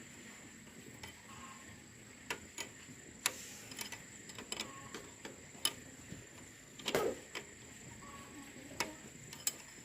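Scattered light clicks and taps at irregular spacing, with a heavier knock about seven seconds in.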